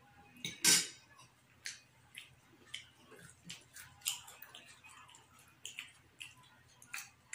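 Eating at a table: scattered soft clicks and taps of fingers and cutlery on plates, with chewing, and one louder tap about a second in.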